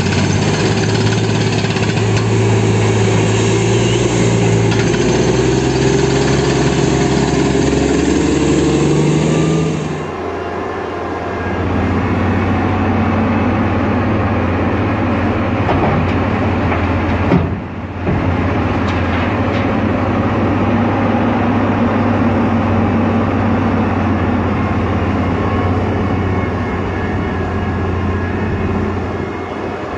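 Diesel engines of heavy mining machines running steadily. First comes a crawler blasthole drill rig's engine. After an abrupt change about ten seconds in, a large Komatsu hydraulic mining excavator's engine runs as it loads a haul truck.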